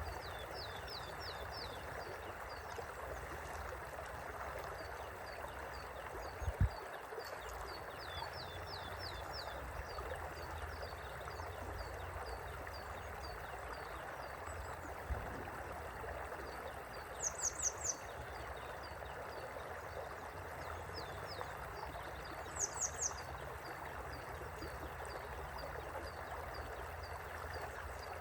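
Gently flowing river running steadily, with small birds chirping over it in quick runs of short high notes and two louder three-note chirps in the second half. A single low thump comes a little over six seconds in.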